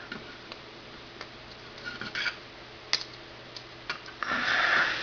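Small plastic clicks and ticks from snap-fit model kit parts being handled and fitted together, a few scattered light taps. A short breathy rush, like a sniff, about four seconds in.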